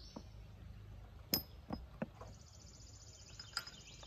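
A few sharp metallic clinks with a short ring, the loudest about a second in: steel cylinder-head bolts being put into the parts basket of a carburetor-dip can.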